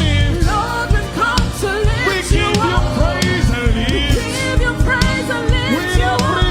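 Live gospel praise music: a band with drums keeping a steady beat, with singing over it.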